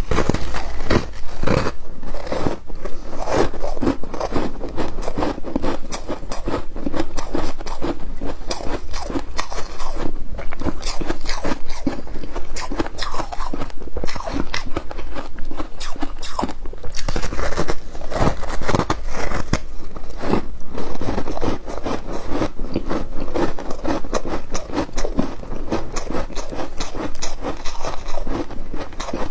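Close-up crunching and chewing of foam ice topped with flaked ice: a dense, irregular run of crackling crunches that goes on without a break.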